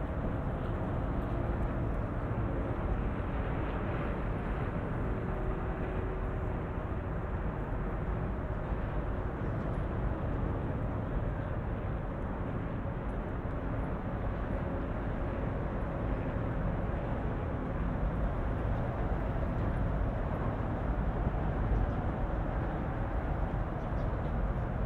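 Steady hum of road traffic: a constant wash of passing vehicles with faint engine tones running through it.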